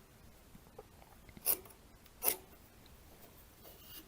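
Two short scratching strokes of a pencil marking a line on the wood, about a second apart, with quiet between them.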